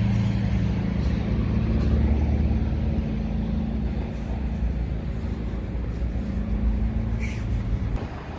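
Steady engine hum from a parked food truck, running on without change and fading near the end, over low street rumble.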